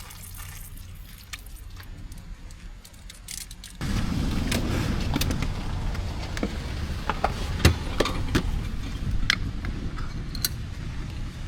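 Tank 500 SUV: quiet at first, then about four seconds in a steady low rumble starts suddenly, with scattered clicks and knocks over it.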